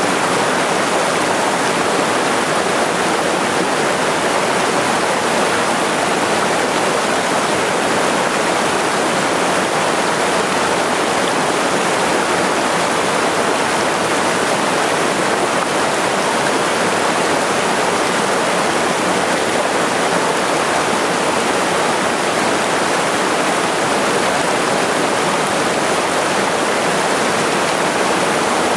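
Small waterfall cascading over boulders into a pool of a mountain headwater stream: a steady, loud rush of water.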